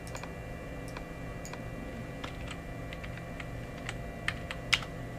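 Scattered keystrokes on a computer keyboard, typing a value into a field, with two louder key presses near the end, over a steady low hum.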